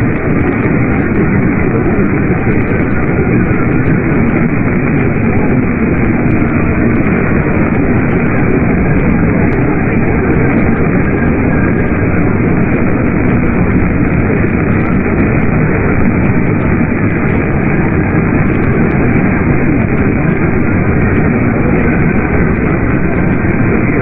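Steady, unbroken radio static from a receiver, with no voice or alert tone coming through.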